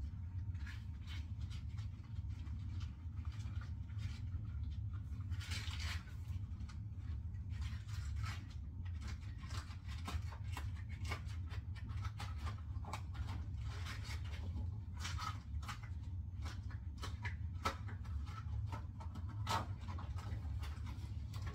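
Dishes being handled and scrubbed with rubber-gloved hands: scattered knocks, clinks and rubbing strokes over a steady low hum.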